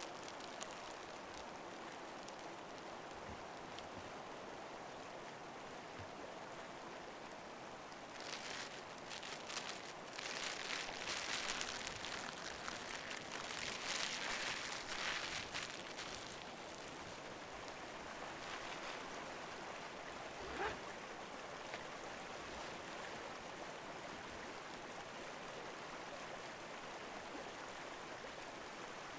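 Steady faint rush of a flowing stream, with a louder stretch of scratchy noise from about a third of the way in to past the middle, and one short knock later on.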